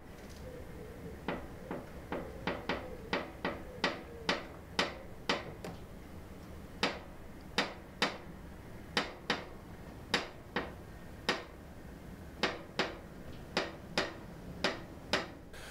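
A series of sharp clicks, irregularly spaced at about two or three a second with a few longer gaps.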